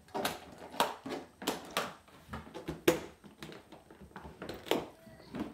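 Metal latches on a hard-shell cello case being flipped open one after another: a string of sharp clicks and snaps, the loudest about three seconds in.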